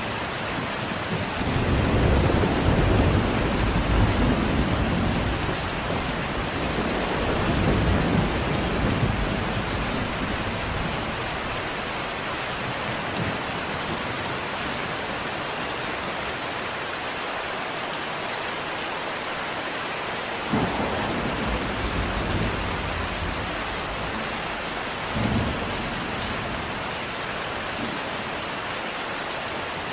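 Steady rain falling, with rolling thunder rumbling in the first ten seconds or so and two sharper thunder claps, one about two-thirds of the way through and one a few seconds later.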